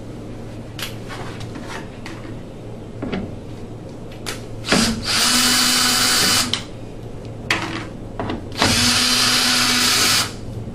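A power drill/driver runs twice, each time for about a second and a half, with a steady whine: it is backing out the fasteners that hold the furnace's flue transition. Light clicks and handling knocks come before the two runs.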